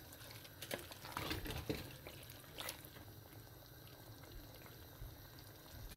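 Spatula stirring a wet lamb and tomato curry in a terracotta pot: a few soft knocks and scrapes in the first three seconds over faint bubbling and sizzling.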